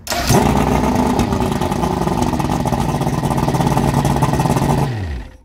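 1993 Johnson 200 HP OceanRunner V6 two-stroke outboard catching at once and running steadily for about five seconds, then shut off, its pitch dropping as it winds down near the end.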